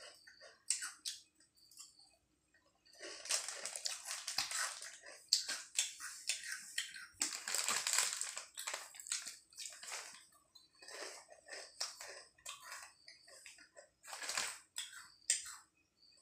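Foil crisp packet crinkling and rustling in irregular bursts as a hand rummages in it for potato chips, with crunching of chips.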